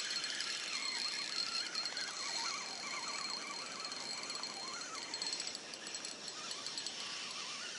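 A spinning reel is being wound to bring in a hooked perch, under a steady hiss of wind, with faint ticking from the reel about five seconds in.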